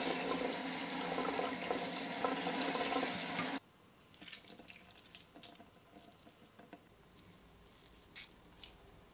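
Kitchen tap running into a stainless steel sieve of canned banana blossom being rinsed, then shut off abruptly a few seconds in. After that come quiet, scattered wet squelches and crackles as the rinsed banana blossom is squeezed out by hand.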